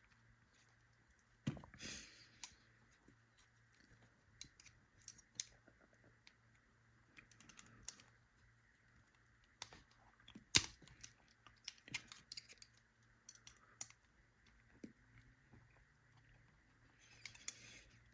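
Scattered small metallic clicks and ticks of hand tools working on a euro lock cylinder as its C-clip is pried off, with one sharper click about ten seconds in.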